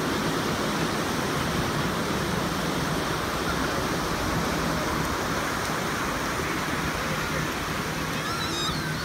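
Steady wash of small surf breaking and running up a sandy beach. A few brief high chirps come near the end.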